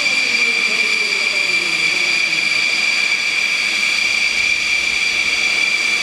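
Microlight trike's engine and pusher propeller running as it passes low, a lower engine note falling in pitch over the first two seconds, under a steady high-pitched whine.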